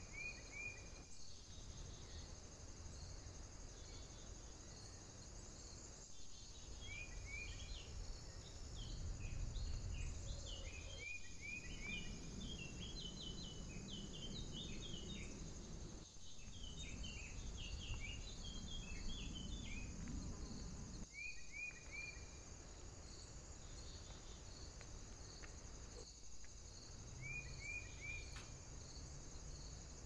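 Woodland ambience: a steady high-pitched insect trill with a regular pulsing beneath it, and short bird calls in quick groups of three every few seconds, with more scattered chirps in the middle. A low rushing noise swells in the middle and eases off toward the end.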